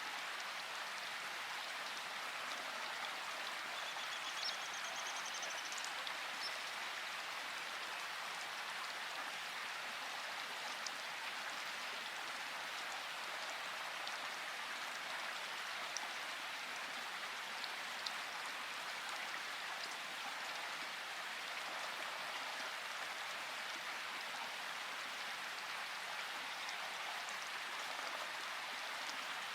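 Steady rain falling: an even hiss, with now and then a single louder drop ticking.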